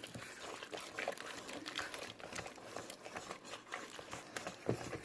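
Thick jalebi batter of flour and water being stirred in a bowl: irregular soft clicks and wet slaps, many strokes a second.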